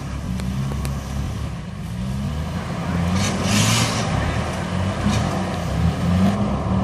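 Off-road 4x4's engine running at low revs under load, its pitch wavering, with a short burst of hissing noise about three seconds in.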